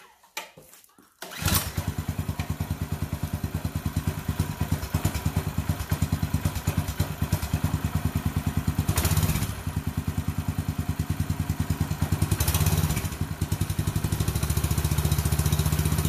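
Cold, choked 196cc single-cylinder four-stroke engine of a TrailMaster Storm 200 mini bike catching on a pull-start about a second and a half in, then running with rapid even firing pulses. It revs up briefly twice with throttle blips before settling into a steady idle.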